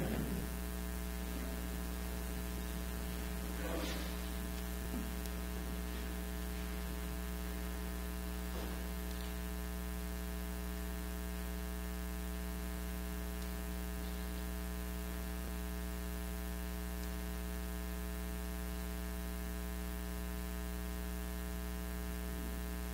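Steady electrical mains hum with many evenly spaced overtones, with a couple of faint brief sounds about four and nine seconds in.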